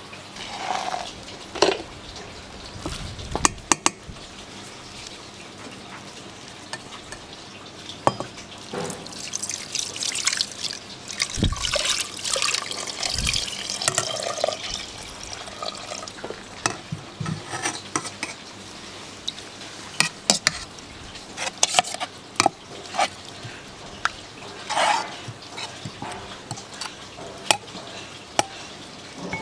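Kitchen work with water splashing and sloshing, and scattered sharp clicks and knocks of utensils. The water sound is densest a little under halfway through.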